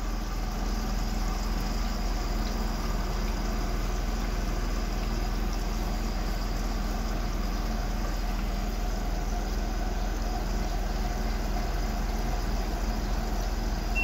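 Water pump inside an LG 12 kg washer-dryer running with a steady hum, switched on in the machine's test sequence to check that each of its pumps works.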